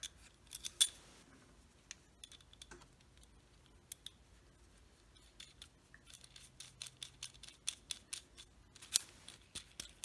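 Light metal clicks and scrapes of pen-turning bushings and a pen blank being slid by hand onto a metal pen mandrel, scattered and irregular, more frequent in the second half.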